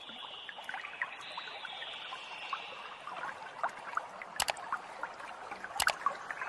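Water trickling and splashing lightly, with scattered small crackles and two sharp clicks, one about four and a half seconds in and one near six seconds.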